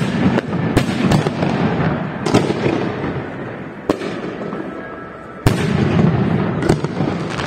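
Aerial fireworks shells bursting: about ten sharp bangs at uneven intervals, the loudest right at the start and about five and a half seconds in, over a continuous crackle and rumble from the display.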